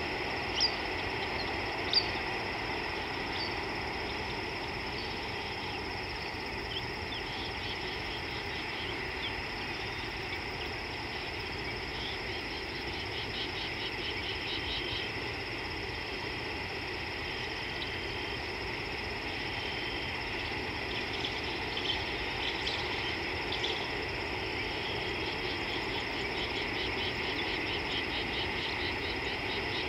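Outdoor ambience from a steady chorus of calling insects and frogs, with rapid trills that come and go. Two short, sharp chirps about a second apart stand out near the start.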